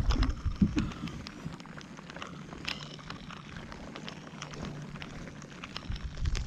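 Rain falling, with scattered drops ticking sharply close by, and a few low thumps in the first second.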